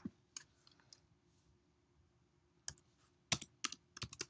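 Scattered keystrokes on a computer keyboard as code is typed: two single clicks at the start, a pause of about two seconds, then a run of five quicker clicks near the end.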